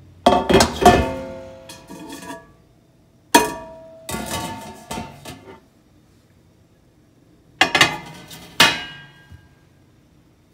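Stainless-steel mesh air-fryer basket knocking against the oven's metal and glass cooking trays, each knock ringing out with a metallic tone. There are clusters of several clanks near the start, between about three and five seconds in, and around eight seconds in.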